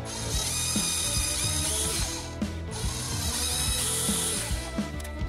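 Cordless drill running in two bursts of about two seconds each, with a short pause between them, boring holes through a thin plastic RC car body shell. Its motor gives a high whine.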